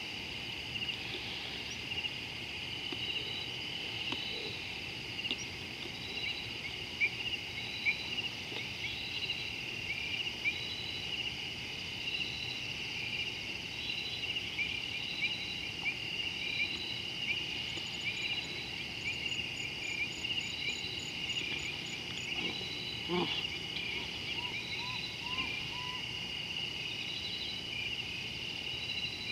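Dusk chorus of insects: a steady high-pitched shrill, with a short chirp repeating about once a second. About three-quarters of the way through, a brief string of lower, rising calls from another animal joins in.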